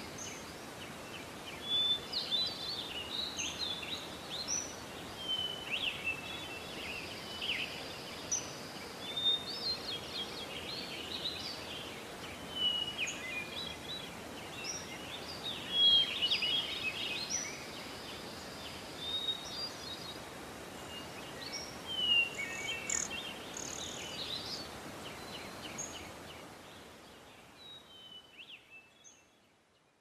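Woodland birdsong: many small birds chirping and trilling over a steady outdoor hiss, fading out near the end.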